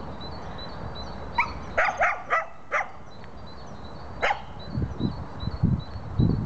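A dog barking: a quick run of about five short, high yelps falling in pitch about a second and a half in, then one more about four seconds in.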